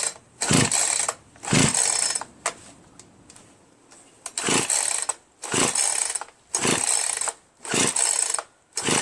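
Poulan Pro PR4218 42cc two-stroke chainsaw being pull-started about seven times, each yank a short rasping whir of the recoil starter and cranking engine, with a pause after the second pull. The engine never fires, a no-start the owner puts down to low compression from a scored piston, rings and cylinder wall.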